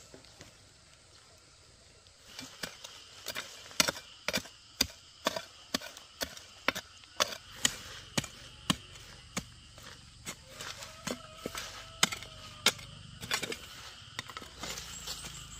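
Hand hoe chopping into packed dirt and dry leaves, about two strikes a second, digging a trench for a water pipe. The strikes start about two seconds in and stop shortly before the end, where insects chirr steadily.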